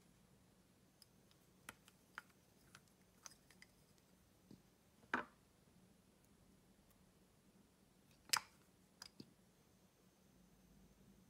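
Sparse small clicks and ticks of a plastic lip-gloss bottle and its cap being handled and opened, over near silence. Two louder clicks come about five and eight seconds in.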